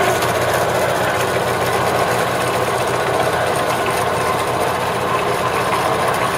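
Vectrax 7" x 12" horizontal bandsaw running steadily, its motor humming and blade turning as the head lowers on the hydraulic down feed. The motor vibrates a little, which the owner thinks could be just a motor adjustment.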